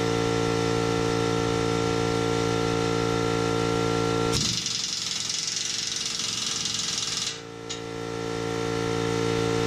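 Steady mechanical drone of compressed-air shop equipment. About four seconds in it gives way to a hiss of air lasting about three seconds, then the drone returns and builds back up.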